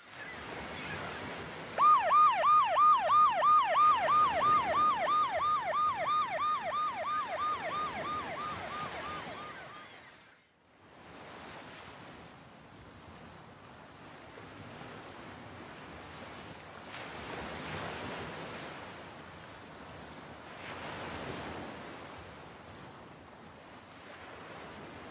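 An emergency siren yelping, about four quick rising-and-falling wails a second, starts about two seconds in and fades away over some eight seconds, over a hiss of ocean surf. After a brief dip, ocean waves wash on alone with slow swells.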